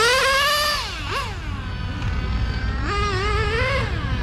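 OS Max R21 nitro engine of a Serpent 990 Viper 1/8 RC car, freshly run in, revving up and down as the car laps. Its high whine rises and falls: a long climb at the start, short blips, then another long climb about three seconds in, over a low rumble.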